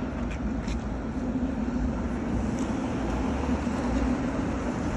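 Steady low rumble of vehicle engines and street traffic, with a few faint clicks in the first second and one more midway.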